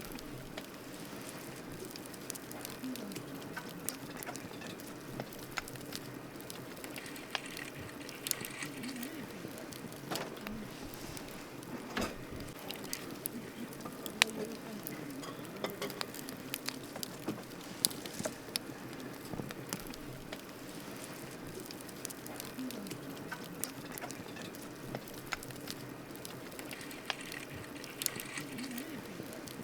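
Wood campfire crackling: irregular sharp pops and snaps over a steady soft hiss, with a few louder pops scattered through.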